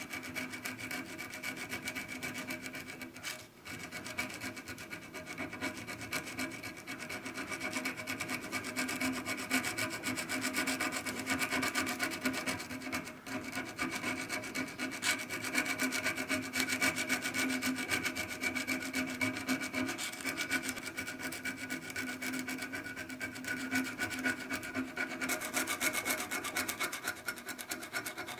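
A steel file scraping back and forth over the face of a rusty steel plane iron clamped in a vice, taking the rust off. The blade rings with a steady tone under the continuous scraping, which pauses briefly a couple of times.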